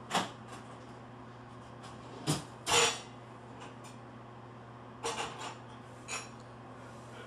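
A series of sharp knocks and clattering bumps over a faint steady hum: one at the start, two more a little after two seconds in (the second one loudest), a short cluster about five seconds in and a last knock about six seconds in.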